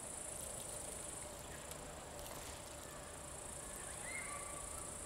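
Crickets chirring steadily, a faint high continuous buzz in the background, with a faint short high note about four seconds in.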